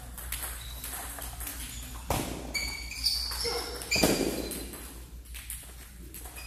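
Celluloid-type table tennis balls clicking off tables and paddles around a practice hall, an irregular patter of small hits with two louder hits about two and four seconds in.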